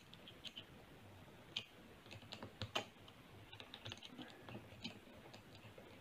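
Faint, irregular clicks and ticks of a screwdriver turning the screw of a worm-drive hose clamp as it is tightened around a rubber joiner hose.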